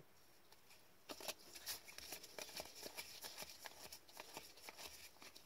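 Hockey trading cards being flicked through and sorted in gloved hands: a quick run of light clicks and card-on-card rustling that starts about a second in and thins out near the end.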